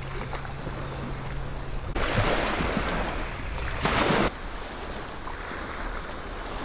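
Sea washing and splashing over a rock shelf at the water's edge. It grows louder and hissier about two seconds in, then cuts off suddenly just past four seconds to a quieter wash.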